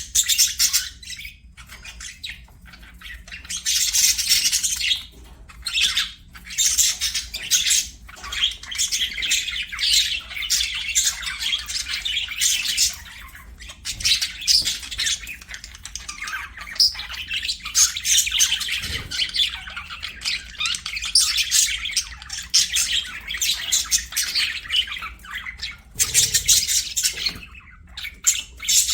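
Budgerigars chattering and warbling continuously: rapid, busy chirps, squawks and scratchy trills from several birds, pausing only briefly now and then.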